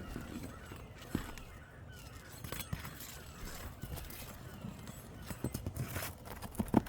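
Roofer's hatchet and roof snake working under asphalt shingles to pull the nails, giving scattered sharp knocks and clicks, loudest near the end, over a light scraping.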